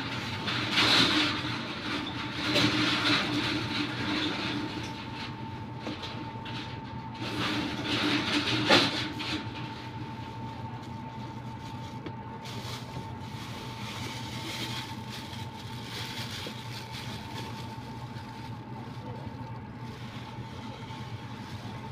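Thin plastic shopping bags rustling and crinkling as hands rummage through them, in three louder bouts over the first nine seconds, then softer crinkling. A steady high whine and a low hum run behind it.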